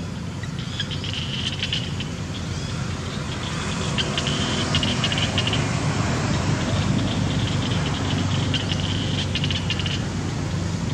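Outdoor ambience: a steady low engine rumble, like passing traffic, that grows louder about four seconds in, with short spells of high chirping over it.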